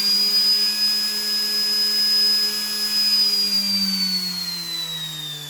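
A small 3D-printed axial-flux brushless DC motor, driven by a JY01 controller, running up to speed with a high whine over a low hum. The pitch holds steady, then falls from about three and a half seconds in as the motor slows.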